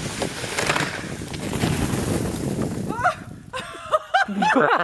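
A rough rushing noise for about three seconds, then high-pitched shrieking laughter in quick repeated bursts near the end.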